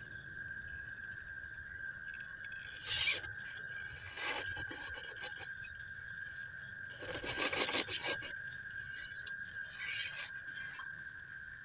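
Scale RC crawler's rubber tyres and chassis scraping and rubbing against wooden planks in short bursts as it climbs over them, the longest and loudest scrape about seven to eight seconds in, over a steady high tone.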